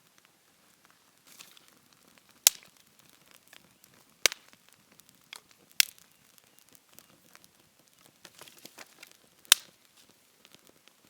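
Four sharp, separate cracks of wood, with faint crackling and rustling between them.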